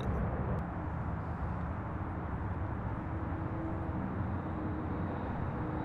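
Steady jet engine rumble from a CRJ regional jet's rear-mounted turbofans as it climbs out after takeoff, heard at a distance, with a faint hum running through it.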